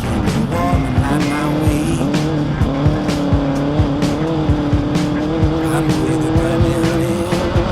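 Off-road race vehicle's engine running at steady high revs, its pitch holding nearly level throughout, with music carrying a steady beat over it.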